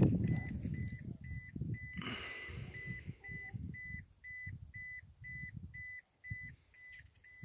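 Rapid electronic beeping, one steady pitch repeating about four times a second, over a low rumbling noise on the microphone.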